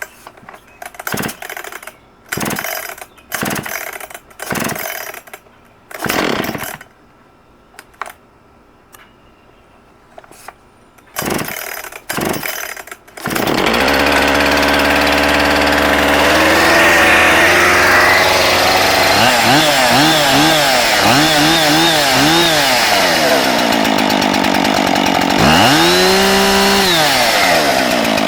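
Husqvarna 576XP two-stroke chainsaw being pull-started: several short pulls on the starter cord, then the engine catches about 13 seconds in and idles. It is revved in a run of quick blips, then once more for about two seconds near the end.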